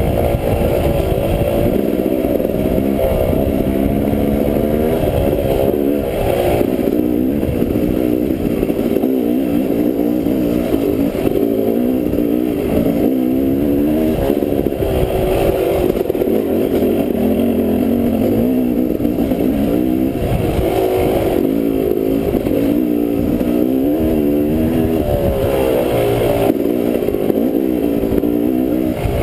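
Dirt bike engine being ridden, its pitch rising and falling continually as the throttle is opened and rolled off, heard close up from a helmet-mounted microphone over a steady low rumble.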